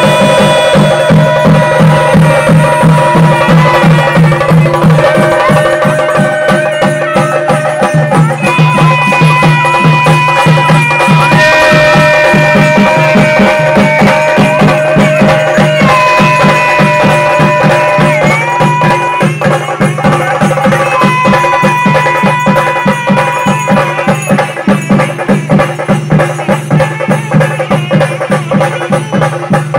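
Traditional South Indian temple music: long held melody notes that move to a new pitch every few seconds over a steady low drone, with fast drumming throughout.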